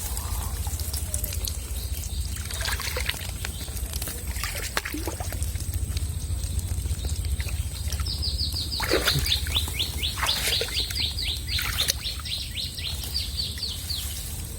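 Water splashing and trickling around a bamboo fish trap. In the second half a bird sings a rapid trill of short, descending, high notes, about four a second, for roughly six seconds.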